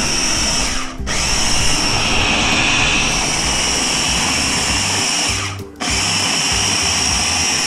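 Electric mini food chopper running with a steady high whine as it grinds bread soaked in hot water, pressed on in three runs with short stops about a second in and just before six seconds.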